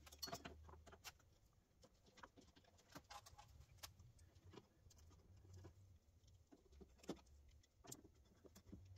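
Near silence: faint scattered clicks and taps of small plastic Phillips-head screws being started by hand into a halo light ring around a headlight, over a faint low hum.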